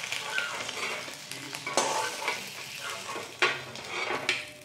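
Peeled boiled duck eggs sizzling in hot mustard oil in a kadai as a metal slotted spatula scrapes the pan and lifts them out, with a few sharp knocks of the spatula on the pan.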